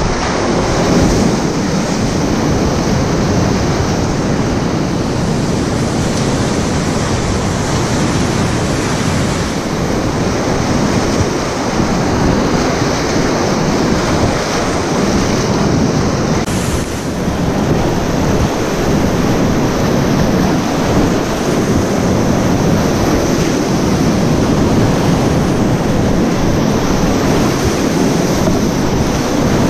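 Loud, steady rush of a flooded river's whitewater rapids, heard from a kayak in the middle of the current.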